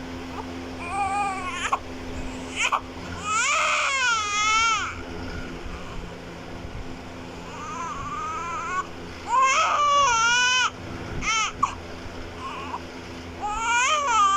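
Newborn baby crying in several wavering wails, each a second or two long, with short catches of breath between them.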